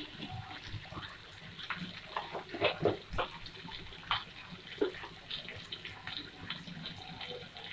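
Onions, tomatoes, green chillies and cashews sizzling in oil in a frying pan, with scattered, irregular pops and crackles.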